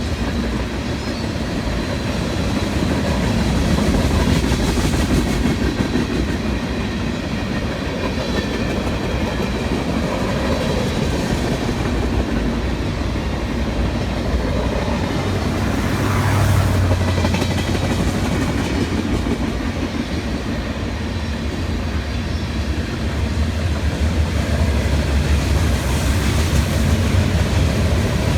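CSX manifest freight train rolling past close by: a steady rumble and rattle of freight cars on the rails, with no pauses or gaps.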